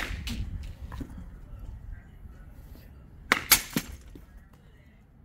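Baseball bat hitting pitched balls: a sharp crack right at the start, then another hit about three and a half seconds in with a couple of quick knocks right after it.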